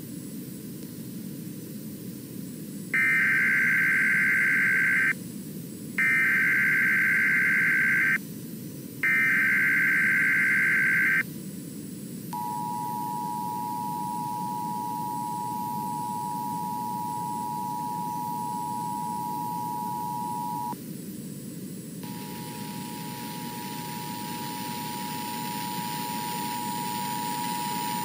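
Emergency Alert System relay of a child abduction alert. First come three loud, buzzy SAME header data bursts of about two seconds each, one every three seconds. About 12 seconds in the steady two-tone EAS attention signal starts; it breaks off briefly about 21 seconds in, then resumes, all over a low hiss.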